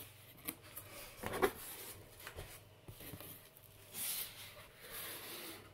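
Cardboard box flaps being opened and folded back: quiet scraping and knocking of cardboard, with one sharper knock about a second and a half in and a longer rustle of cardboard and paper near the end.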